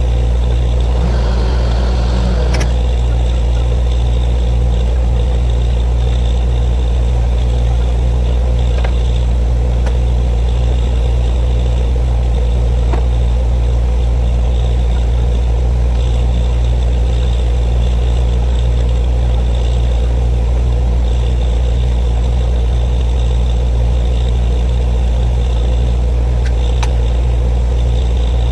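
Borewell drilling rig's engine running steadily: a loud, even low drone with a few faint clicks.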